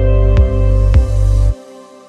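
Background music with a steady beat and deep bass under sustained notes. The beat and bass cut off about one and a half seconds in, leaving the held notes fading out.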